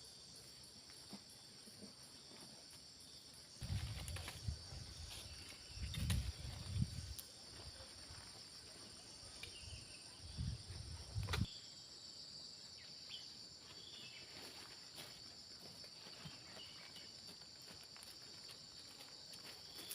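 A steady high shrill chorus of insects such as crickets or cicadas. Low muffled rumbles and bumps come and go between about 4 and 11 seconds in, the loudest of them around 6 and 11 seconds.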